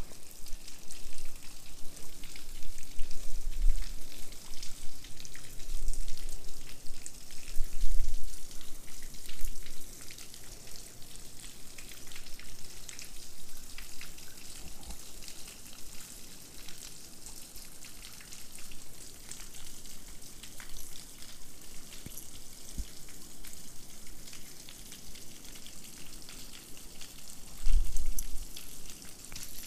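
Close handling noise from hands unhooking a small bass from a hollow frog lure: a steady fine crackle and rustle, with a few low bumps against the microphone, the loudest near the end.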